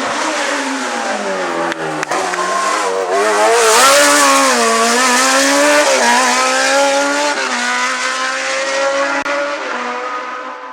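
Race car engine under hard driving on a hillclimb. Its revs fall, then rise and drop again through several gear changes, loudest about four seconds in.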